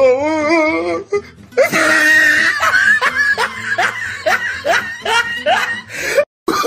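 Laughter over background music: a wavering, quavering laugh in the first second, then a long run of quick 'ha-ha' strokes, about three a second. It cuts off abruptly near the end.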